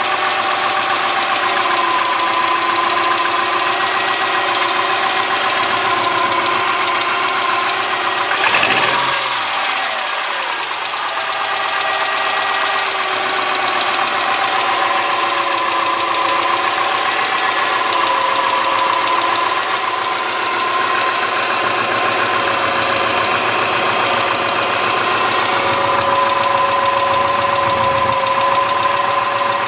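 2003 Subaru Forester's flat-four engine idling with a ticking from the driver side of the engine: the sign of excessive clearance on the driver-side front cylinder's exhaust valve, measured at .029 in. instead of about .010.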